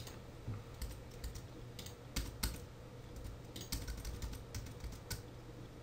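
Typing on a computer keyboard: irregular, uneven keystroke clicks, heard over a faint steady hum.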